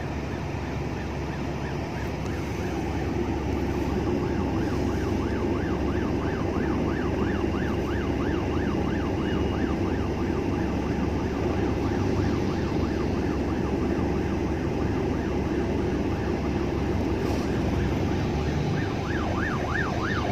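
Ambulance siren sounding a fast rising-and-falling yelp, faint at first and growing louder near the end as the ambulance approaches. It is heard from inside a car, over a steady low engine hum.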